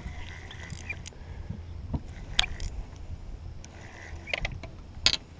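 Fishing gear being handled in a small boat: scattered clicks and knocks, sharpest about two and a half and five seconds in, over a low steady rumble.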